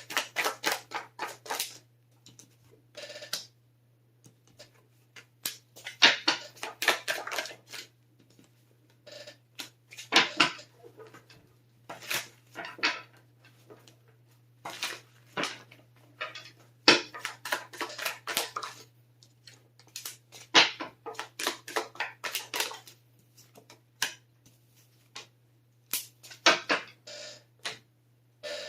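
A deck of tarot cards being shuffled by hand: repeated bursts of quick card clicks and riffles, each about a second long, with short pauses between.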